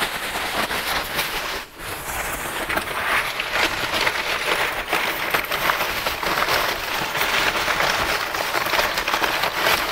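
Crumpled packing paper crinkling and rustling as hands dig through it, a dense run of crackles with a brief pause a little under two seconds in.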